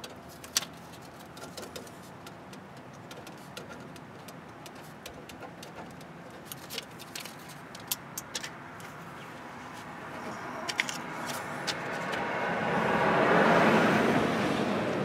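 A road vehicle passing by: its noise swells over the last few seconds, is loudest near the end, then fades. Light scattered clicks and clinks sound throughout.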